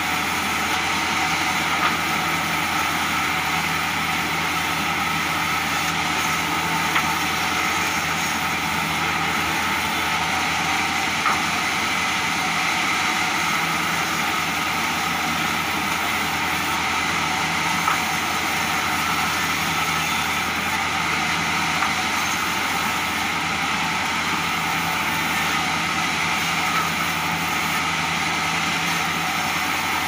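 Belt-driven sawmill bandsaw running steadily while a plank of jati Belanda is fed through and ripped into rafter stock, with a few light knocks scattered through.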